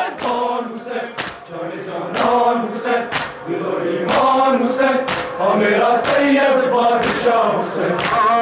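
Crowd of men chanting a Muharram lament (noha) for Hussain together, with a loud sharp crack of chest-beating (matam) in unison about once a second.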